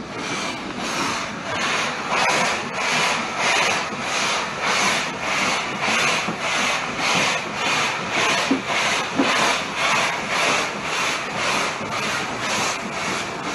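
BR Standard 9F steam locomotive's exhaust beats heard from the footplate: a steady chuff, about two and a half beats a second, as the train works away under steam.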